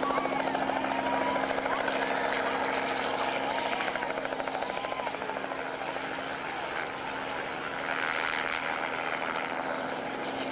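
Helicopter overhead, its rotor making a steady, rapid chopping. Scattered crowd voices and shouts over the first half.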